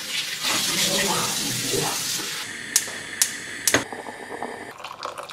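Water running from a bathroom tap onto hands at the sink. Then three sharp clicks about half a second apart.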